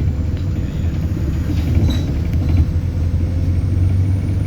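Inside an ADL Enviro400 Hybrid double-decker bus under way: a steady low rumble from the drivetrain and road, with a faint high turbo whistle that rises slightly near the end.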